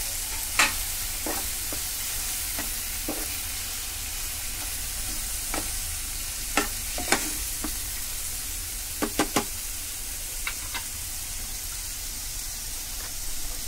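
Onions, tomatoes and spice masala sizzling in a kadhai while a spatula stirs them, with a steady hiss and sharp knocks of the spatula against the pan, including a quick run of three about nine seconds in.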